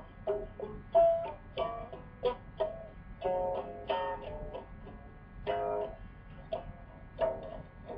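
Guitar music: single plucked notes and a few chords at an uneven, unhurried pace.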